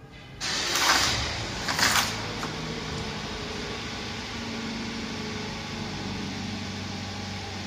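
Two short noisy rushes about one and two seconds in, then a steady mechanical hum.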